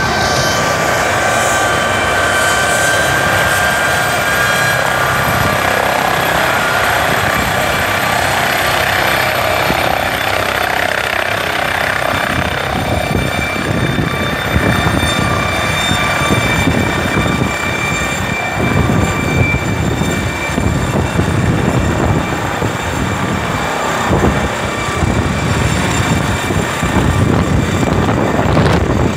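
Air ambulance helicopter lifting off, with a steady turbine whine over loud rotor noise. The beat of the rotor blades grows stronger in the second half as it climbs overhead.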